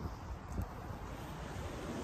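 Wind buffeting the microphone with a low rumble, over the steady wash of surf breaking on a rocky beach. There is a small click about half a second in.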